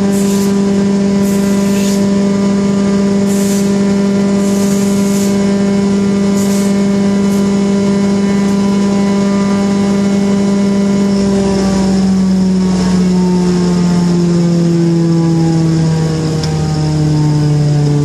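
A 1974 Wayne wood chipper's engine running steadily at high speed, with a few short scraping bursts from a rake on the concrete driveway in the first seven seconds. About two thirds of the way through, the engine's pitch starts falling slowly as it is throttled down.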